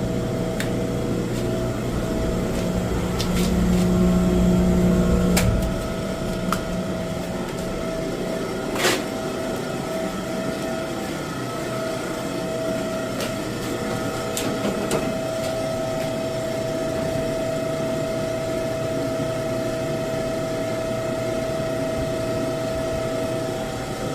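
Boiler equipment running with a steady mechanical hum and a high steady tone; a deeper rumble cuts off about five and a half seconds in, and a few sharp clicks and knocks sound during it.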